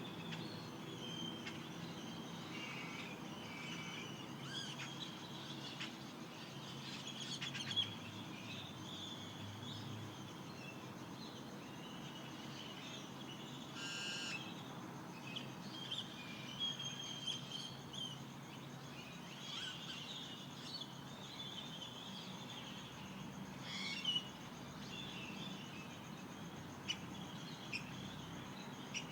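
Desert birds calling at dawn in the Mojave: many short chirps and calls overlapping throughout, with a few sharper, louder calls standing out now and then.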